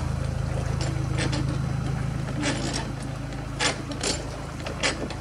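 Narrowboat diesel engine running steadily at low revs with a low throb, the boat moving out of a lock. Several sharp clicks and knocks come from about halfway in.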